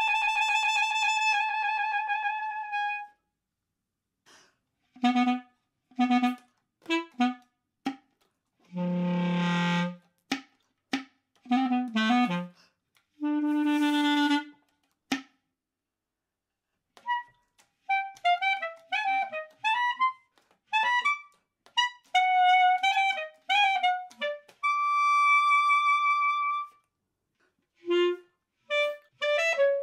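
Unaccompanied basset horn playing in short phrases separated by silences. It opens on a held note with vibrato, then gives short detached notes and a low, rough note about nine seconds in. The second half has quick runs of notes and a long high held note near the end.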